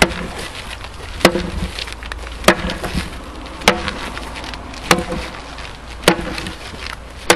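Leveraxe Vipukirves 2 splitting axe chopping a firewood round held in a tyre, seven sharp blade strikes about 1.2 seconds apart. Each crack of the blade biting into the wood is followed by a short, lower knock.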